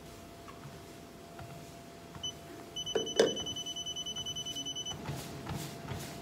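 Treadmill control panel beeping as the speed is raised: one short beep, then a fast unbroken string of beeps for about two seconds, with a thump near the start of the string. Near the end, running footfalls start on the belt.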